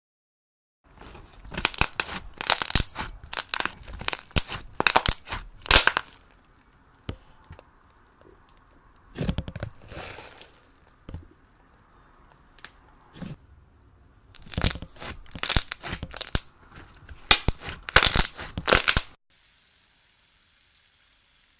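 Slime being squeezed, pressed and pulled apart by hand, giving crunchy, crackling and tearing sounds in three runs of bursts. It stops about three seconds before the end, leaving faint hiss.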